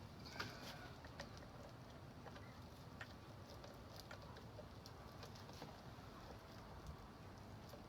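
Near silence, broken by faint, scattered small clicks and rustles.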